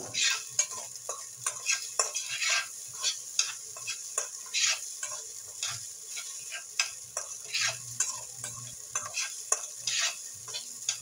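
Fried rice being stirred in a stainless steel pan: a spatula scrapes and turns the rice in irregular strokes, roughly two a second, over a light steady sizzle.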